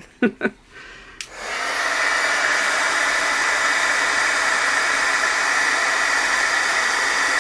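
Embossing heat gun switched on with a click about a second in, then running steadily: fan noise with a high whine, heating embossing powder on a button.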